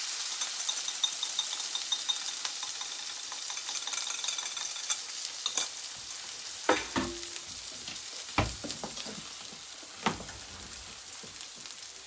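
Egg and chopped vegetables frying with a steady sizzle in a hot pan, stirred with a spatula that knocks and scrapes against the pan a few times in the second half.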